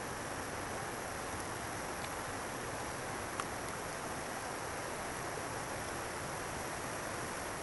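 Steady rush of flowing river water, with one brief click a little over three seconds in.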